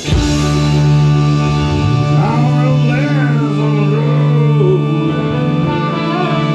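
Live blues-rock band holding a sustained chord on electric guitars and bass, with no drum beat under it. About two seconds in, a wavering, bending line starts over it, likely lead-guitar string bends, and comes back near the end.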